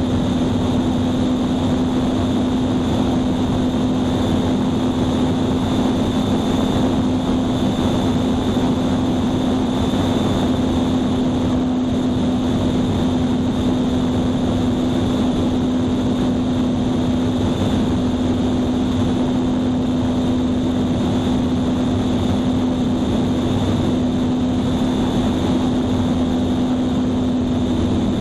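Small airplane's engine droning steadily in cruise flight, with a strong constant hum and wind noise over it.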